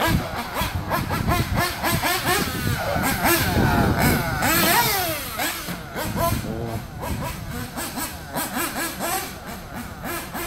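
Mugen MBX6R 1/8-scale nitro RC buggy's small glow engine revving up and down as the throttle is blipped, its high buzzing pitch rising and falling again and again. It grows fainter in the second half as the buggy runs farther off across the grass.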